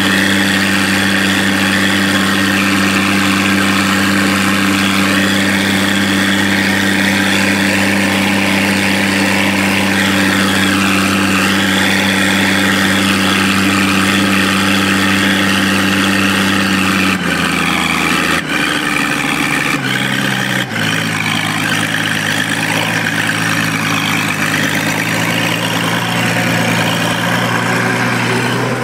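Allis-Chalmers 185 tractor engine, freshly overhauled, running steadily under load while pulling a disk harrow. About two-thirds of the way through, the engine note changes with a few sharp clicks, then settles into a different steady note.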